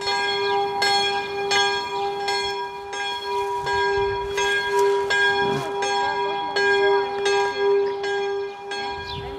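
A church bell ringing, struck over and over less than a second apart, each stroke ringing on into the next.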